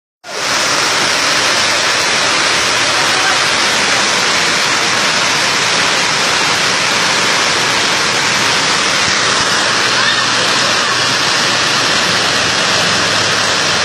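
Torrential rain pouring down onto flooded ground, a dense, steady hiss.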